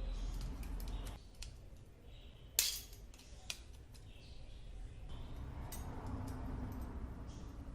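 A few sharp clicks and clinks of small hard objects being handled, the loudest about two and a half seconds in, over a low steady hum.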